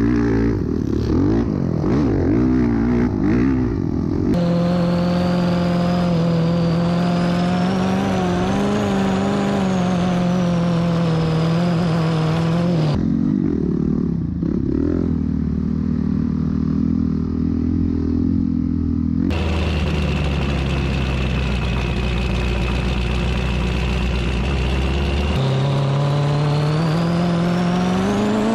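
Honda CRF450R dirt bike's single-cylinder four-stroke engine running hard, heard from on the bike. The throttle rolls on and off quickly for the first few seconds, the revs then hold steady and high, and they climb again near the end.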